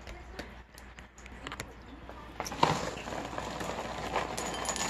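Dry cereal rattling as a cardboard cereal box is tipped over a glass bowl and the pieces start pouring in: a few light handling clicks, then from about halfway a dense, growing patter of small clicks.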